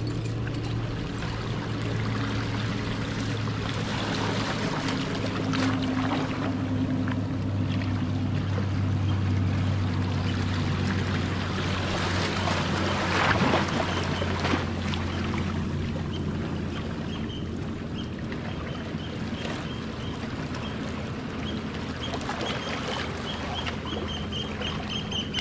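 Sea water lapping and washing around rocks in shallow water, with one wave washing over a rock about halfway through as the loudest moment. A steady low engine hum runs underneath, and near the end a bird calls in quick repeated high notes.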